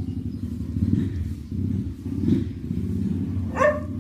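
A low rattling rumble runs throughout, and a kitten meows once near the end.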